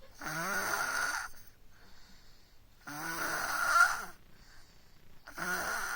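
A baby snoring: three long snores, each lasting about a second, at the start, about three seconds in, and near the end, with quiet breathing pauses between them.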